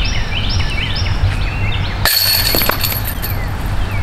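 A disc hits the metal chains of a disc golf basket about two seconds in, setting them jingling and rattling for about a second. Birds chirp over a low steady background rumble.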